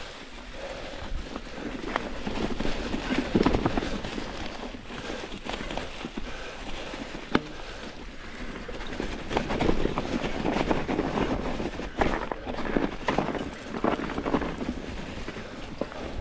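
Mountain bike rolling along a trail thick with dry fallen leaves: its Maxxis Forekaster tyres crunch and rustle through the leaf litter in surges, with a few sharp clicks and knocks from the bike over bumps.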